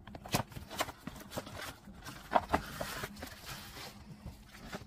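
Cardboard retail box and its plastic insert tray being handled and pulled apart during an unboxing: a string of light knocks, scrapes and rustles at uneven intervals.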